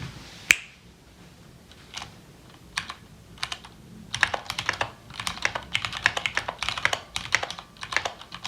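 Typing on a mechanical keyboard with Cherry MX Brown switches: a few separate keystrokes, then quick, uneven typing from about four seconds in.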